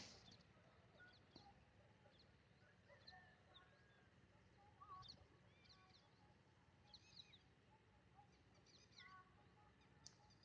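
Faint birds chirping, many short scattered chirps and a few brief whistles, over a low background hum.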